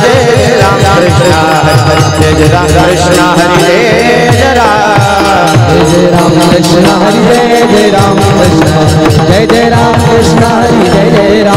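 Devotional group singing of a Varkari bhajan, several voices in chorus, with small brass hand cymbals (taal) keeping a fast, regular beat and the audience clapping along.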